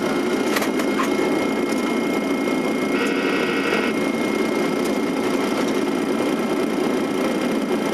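Steady cockpit noise of an airliner on an ILS approach: airflow and engine noise. There are two faint clicks about half a second and a second in, and a short electronic tone lasting just under a second about three seconds in.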